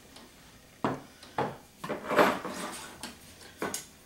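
A cast iron skillet and a ceramic bowl being shifted and set down on a wooden table: a series of knocks and short scrapes, the loudest about two seconds in.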